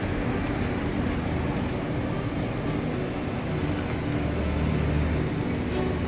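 A compact sedan pulling away from the kerb and driving off, its engine running under a steady bed of street and traffic noise. A low engine rumble swells about two-thirds of the way through.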